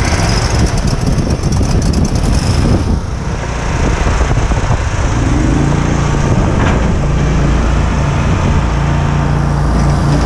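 Engines of zero-turn riding mowers running as they are driven along, the nearer one loud and close. Its engine note settles to a steady speed about halfway through.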